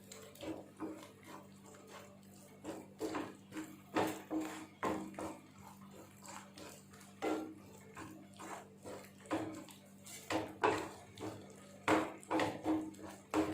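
Metal spatula scraping and knocking against a pan in irregular strokes as beaten egg is stirred and scrambled into onion-tomato masala, over a steady low hum.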